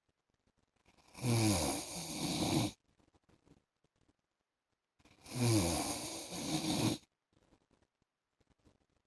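A man snoring in his sleep: two long snores, each about two seconds, about four seconds apart, with near silence between them.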